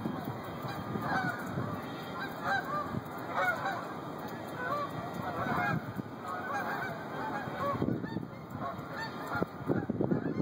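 A flock of geese flying overhead, many honking calls overlapping one another without pause, over a steady low background rumble.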